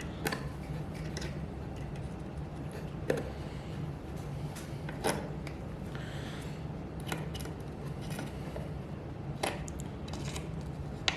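Pliers clicking and scraping on thin steel tie wire as the staple's points are bent over: a handful of sharp metal clicks a second or more apart, over a steady low hum.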